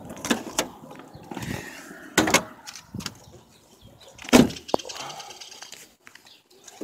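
Several separate knocks and clunks, with the loudest about four and a half seconds in.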